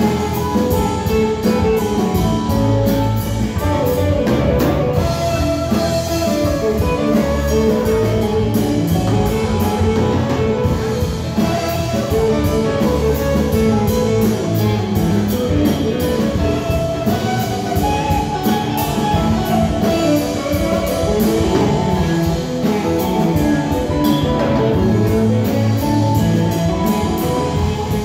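Live rock band playing: electric guitars over bass and a drum kit, steady and loud, as heard from the audience floor.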